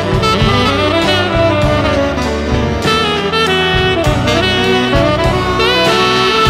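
Saxophone solo in quick, winding melodic runs over a jazz accompaniment of piano, bass and drum kit.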